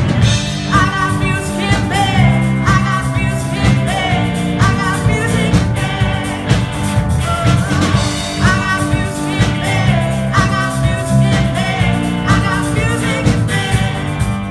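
Live rock band playing: electric guitars, bass, drums and keyboards with singing, a phrase coming round about every two seconds.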